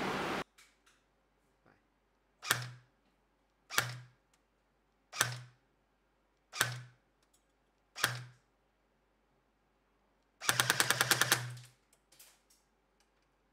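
Magpul PTS PDR-C airsoft electric gun (AEG) firing BBs through a chronograph for a velocity test. It fires five single semi-auto shots about a second and a half apart, each a sharp snap with a brief gearbox whir. Near the end comes one short full-auto burst of about a dozen rapid shots.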